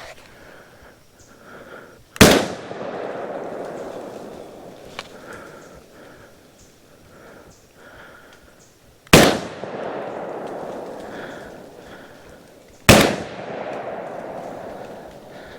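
Three shots from a Browning Maxus 2 12-gauge semi-automatic shotgun, the second about seven seconds after the first and the third about four seconds later. Each shot is followed by a long rolling echo that fades over a few seconds.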